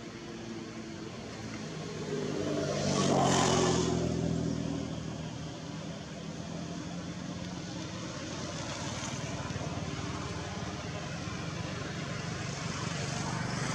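A motor vehicle's engine passes by, growing louder to a peak about three to four seconds in and then fading, leaving a steady engine drone afterwards.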